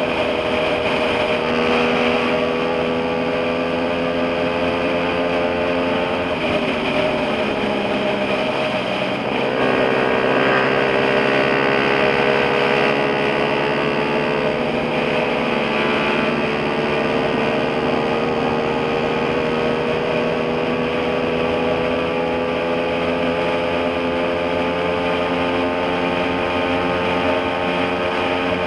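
Motorcycle engine running at cruising speed on the open road, its pitch climbing slowly, dropping twice about six and nine seconds in, then climbing slowly again. Steady wind and road rush run underneath.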